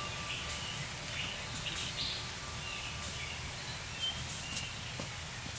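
Birds chirping in short, scattered calls over a steady low background rumble.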